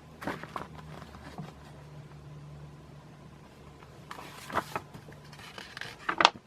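Catalog pages being handled and turned, with short paper rustles a few times and a louder rustle near the end, over a low steady hum that fades out about five seconds in.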